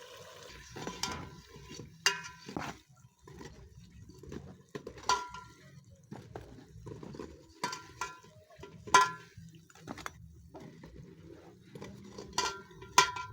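A metal utensil knocking against a metal cooking pot about nine times at irregular intervals, each knock ringing briefly.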